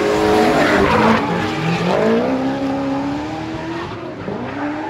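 Two drift cars running in tandem, their engines revving up and down with tyres screeching as they slide. The sound fades over the last couple of seconds as they move away.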